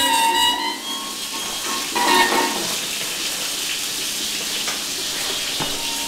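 Vinyl record on a console record player: the music fades out within the first second, then the stylus runs in a quiet groove with steady surface hiss, crackle and a few faint ticks.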